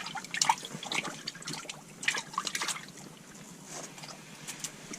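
Water dripping and trickling, with small splashes and wet clicks, as a freshly caught crappie is lifted out through a hole in the ice.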